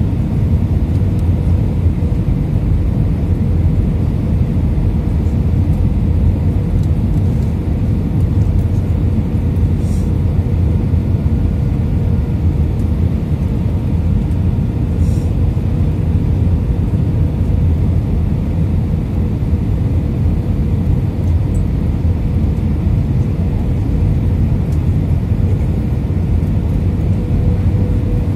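Steady low rumble inside an Airbus A320 cabin on descent for landing, from the jet engines and air rushing over the airframe, with a faint steady hum above it.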